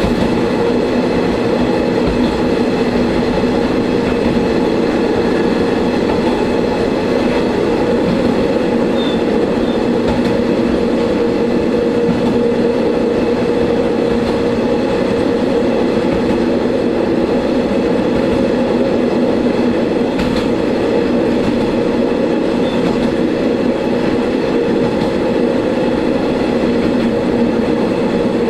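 Diesel railcar on the Shigaraki Kohgen Railway running steadily along the line, heard from inside the car. Its engine makes a constant drone over the rumble of wheels on rail.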